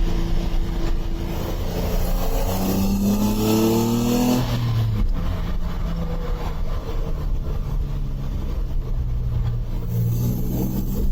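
The Jannarelly Design-1's Nissan 350Z-derived V6, heard on board, accelerates with its pitch climbing for about two seconds. It drops off suddenly about four and a half seconds in, then runs steadily at lower revs and picks up slightly near the end.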